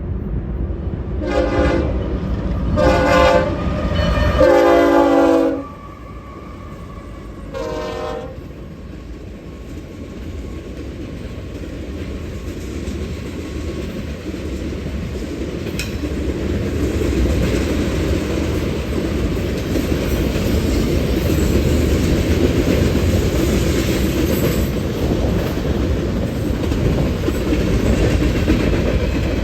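Union Pacific freight locomotive's air horn sounding four blasts, the third the longest. Then the rumble and clickety-clack of the manifest freight's wheels on the rail as it passes, growing louder.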